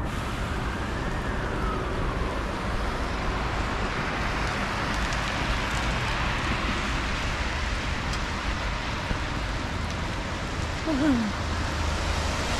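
Steady hiss of rain falling on wet pavement, with traffic on the wet street.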